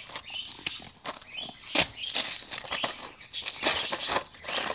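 Clear plastic blister packaging and cardboard crinkling, crackling and clicking as a toy box is worked open by hand, in irregular rustles with sharp snaps.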